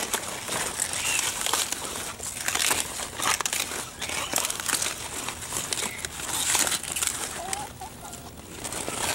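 Cauliflower leaves rustling and crackling as they are handled and bent back around the head, with a few faint chicken clucks.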